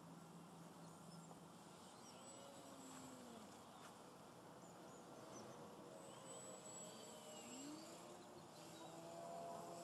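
Faint, distant whine of an E-flite Yak 54 Carbon Z's electric motor and propeller, rising and falling in pitch as the plane flies high overhead, under a low hiss.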